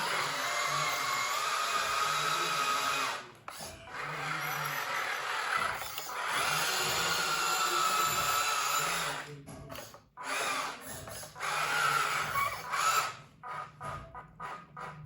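Small electric motors of radio-controlled models whining, with a high-pitched tone that shifts slightly in pitch. The whine cuts out about three seconds in and again about ten seconds in, then starts and stops in short spurts near the end.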